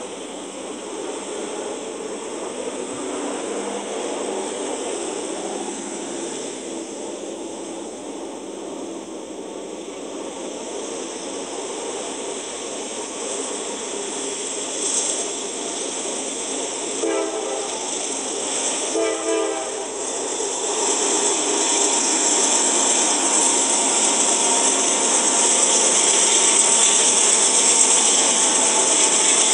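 Freight train passing on the main line with a steady rolling noise. Just past halfway, a diesel locomotive horn sounds two short blasts, then the noise grows louder as a Norfolk Southern train led by diesel locomotives comes by on the near track.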